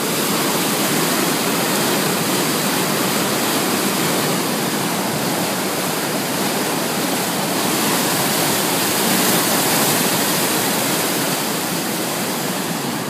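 Floodwater rushing down a swollen river in spate: a loud, steady rush of water that does not change.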